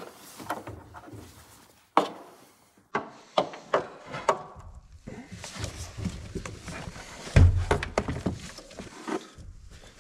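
Plastic engine-bay trim being worked loose by hand: irregular knocks, clicks and scraping, with one heavy thump about seven and a half seconds in.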